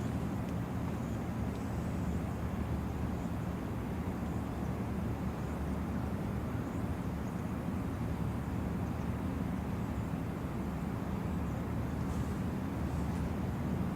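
A steady low rumble with a faint hiss above it, even in level throughout.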